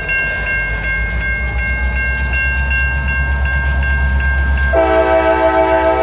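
Diesel locomotive of a CSX train rumbling as it approaches a grade crossing, with the crossing signal bell ringing steadily. The locomotive's multi-chime air horn starts sounding about five seconds in.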